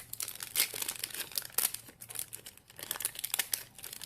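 Foil Pokémon booster pack wrapper crinkling and rustling in the hands as it is torn open, in irregular crackles.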